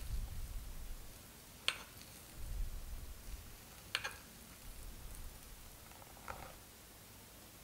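A metal fork cutting down through soft yogurt cake and clinking against the ceramic plate three times, roughly two seconds apart, over a faint low room rumble.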